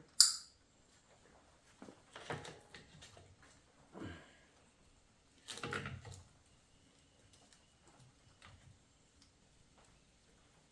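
A sharp click right at the start, then scattered short clicks and scrapes of hand tools and parts being handled on a transmission during disassembly, quieter in the last few seconds.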